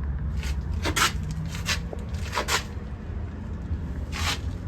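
Cummins diesel engine of a Freightliner M2 truck running with a steady low rumble, overlaid by about five short rustling noises.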